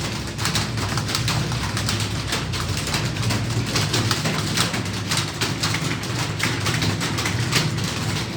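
Many computer keyboards clattering at once as a room of typists types fast: dense, irregular key clicks without a break, over a steady low hum.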